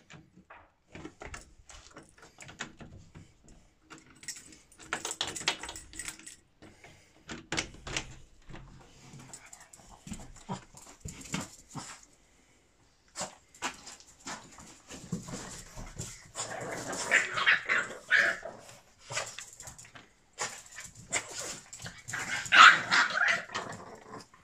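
Two Boston terriers, one a five-month-old puppy, whining, yipping and barking as they greet and wrestle, with claws clicking and scrabbling on tile and glass. The loudest barking and yelping comes in bursts in the second half.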